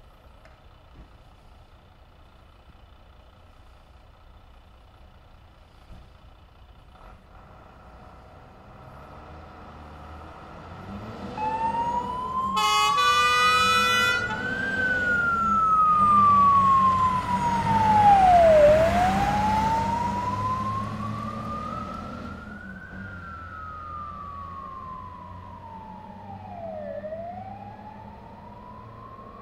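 A fire engine approaches and drives past, its siren wailing slowly up and down, with a short horn blast just after the siren starts. The engine rumble and siren are loudest as it passes, then fade as it moves away.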